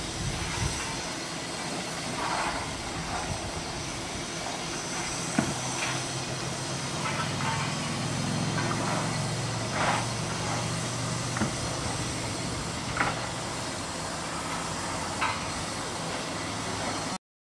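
Railway carriages and a wagon rolling past on the track, with irregular sharp clanks from the wheels and couplings over a steady hiss and low rumble.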